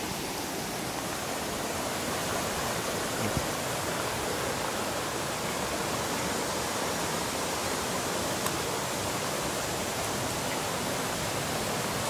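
Steady rush of a rocky river flowing over boulders and small cascades.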